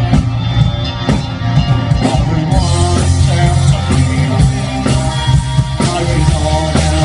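Live rock band playing through PA speakers: guitars over a steady bass line, with drums.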